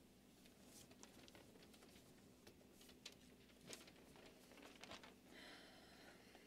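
Near silence: room tone in a quiet hall, with a few faint clicks and a brief, faint rustle about five seconds in.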